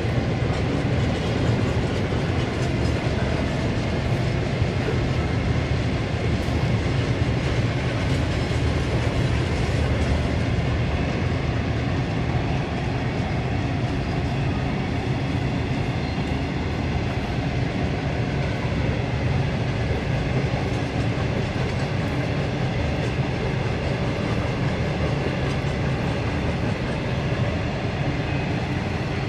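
Freight train of covered hopper wagons rolling steadily across a railway bridge: a continuous low rumble of wagon wheels on the rails.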